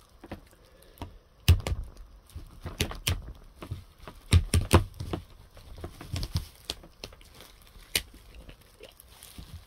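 A plastic bottle cap being twisted open by a hand in a crinkly disposable plastic glove: a series of sharp, irregularly spaced clicks and crackles as the cap is worked loose.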